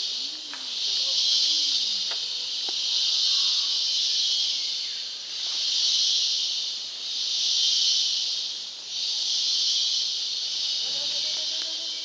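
Rainforest insect chorus: a loud, high hissing buzz that swells and fades about every two seconds. Faint low calls of another animal come near the start and again near the end.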